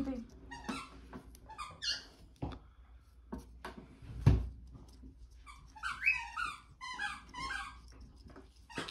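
Soft clicks and taps of handling on a countertop, with one louder thump about four seconds in.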